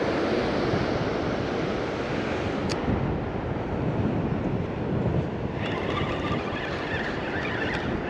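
Ocean surf breaking on the beach, with wind buffeting the microphone. About five and a half seconds in, a higher, repeating tonal sound joins in.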